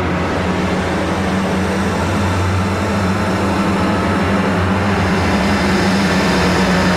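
Steady low rumbling drone with a hiss over it, a science-fiction sound-effects bed, building slightly toward the end.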